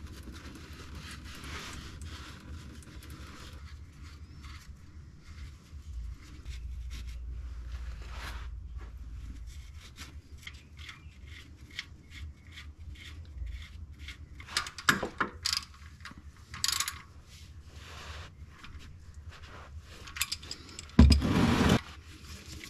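Metal hand tools clinking and scraping against the car's underside during an oil change, as a ratchet wrench is fitted to the oil drain plug. Scattered light clicks, a few sharp louder clacks about two thirds of the way through, and a short loud rattle near the end.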